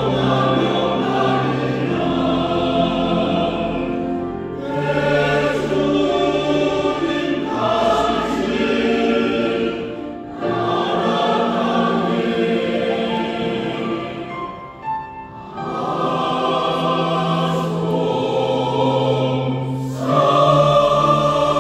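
Church praise team singing a Korean worship song in unison chorus with held notes, backed by keyboard, drums and bass guitar. A short lull comes about two-thirds of the way through.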